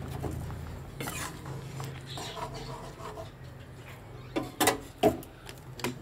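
Kitchenware clinking and knocking, with a cluster of sharp clinks near the end, over a steady low hum.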